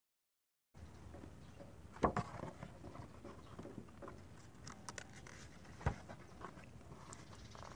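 Picture book being handled and opened: faint paper rustling and soft flips of the cover and page, with a sharper tap or flip about two seconds in and another about six seconds in.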